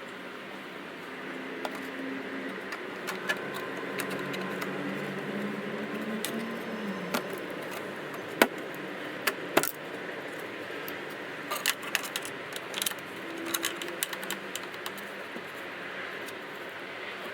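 Sharp metallic clicks and clinks of computer hardware being handled, as in fitting a graphics card and its bracket into a desktop case, over a steady low hum. The clicks are scattered, with two loud ones about halfway through and a quick cluster after that.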